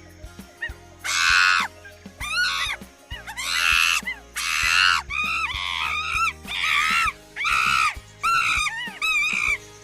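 A monkey calling over and over in high, shrill screeches, about a dozen calls each rising and falling in pitch, with background music underneath.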